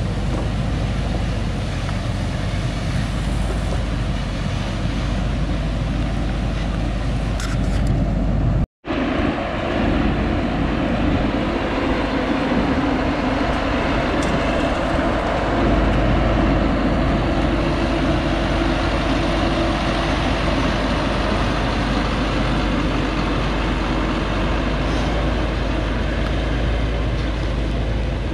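Thaco Forland FC950 4WD truck's diesel engine running hard as the log-laden truck climbs a dirt track: a loud, steady drone. The sound cuts out for an instant about a third of the way through, and after that a steady whine rides on top of the engine.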